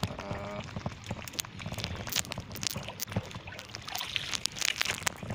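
Sea water sloshing and splashing against a small wooden outrigger boat, with many sharp taps and knocks on the wooden hull as a fishing line is hauled in by hand.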